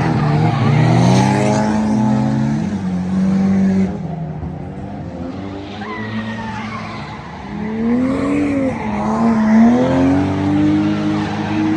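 Drift cars on track: engines revving up and down hard, with tyres screeching as they slide. The revs drop away for a few seconds in the middle, then climb again.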